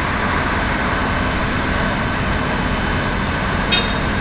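Heavy demolition machinery running steadily, a diesel engine under a continuous loud rumble. There is one brief high squeak near the end.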